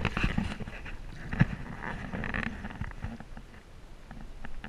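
Water splashing and sloshing as a hooked flathead catfish thrashes at the surface near the bank, with scattered clicks and one sharp knock about a second and a half in.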